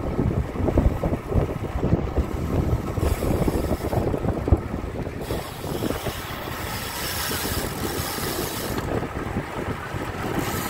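Wind buffeting the microphone of a camera moving along with road cyclists: an uneven low rumble of gusts with a hiss of rushing air above it.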